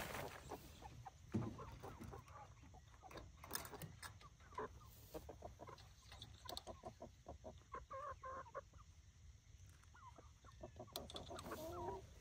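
Chickens clucking inside a small coop: runs of quick short clucks and a few longer calls. There is a single knock about a second in.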